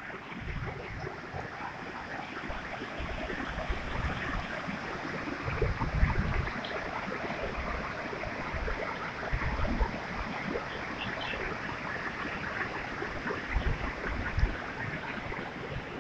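Muddy floodwater rushing past in a steady, noisy flow, with deep rumbles coming and going throughout.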